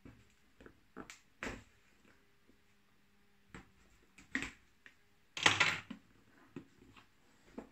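Cardboard tablet box being handled on a wooden tabletop: scattered short taps and scrapes, with a louder scrape lasting about half a second around five and a half seconds in.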